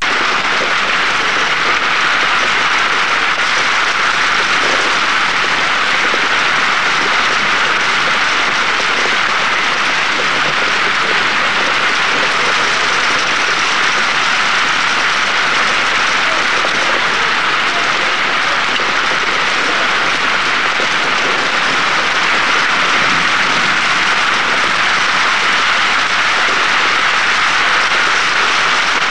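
Rain falling steadily: a loud, even hiss that does not change or break.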